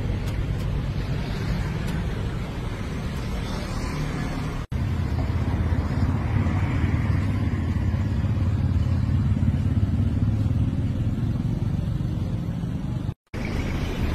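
Steady outdoor background noise, mostly a low rumble, broken by two short dropouts at edit cuts, one about five seconds in and one near the end.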